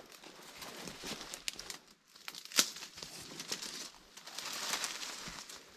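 Dry leaves and undergrowth crackling and rustling underfoot while someone makes his way down a forest slope, with irregular snaps and one sharp crack about two and a half seconds in.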